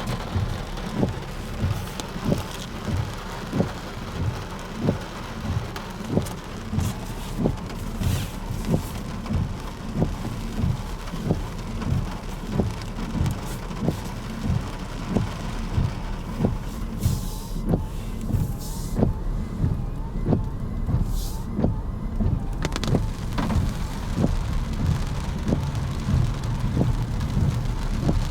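Footsteps of someone walking at a steady pace, low thuds about one and a half a second, over a steady rushing hiss.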